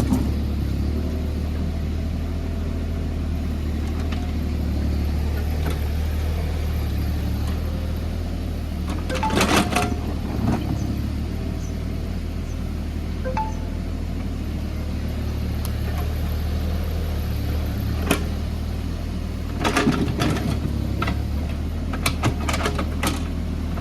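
JCB JS30 Plus mini excavator's diesel engine running steadily, with sharp metallic clanks of the bucket scraping and knocking on hard laterite rock. The clanks come in short clusters: once near the middle and several times near the end. The rock is too hard for the bucket to dig deeper.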